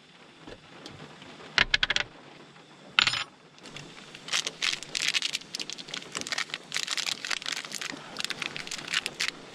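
Small hard objects clinking and rattling as camping gear is handled, with a sharp knock about three seconds in and dense, irregular clattering for most of the second half.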